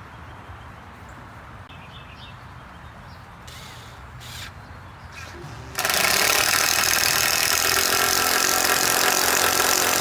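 A handheld power tool starts suddenly about six seconds in and runs loud and steady, with a constant pitch, while working wood. Before that there are only quiet handling noises.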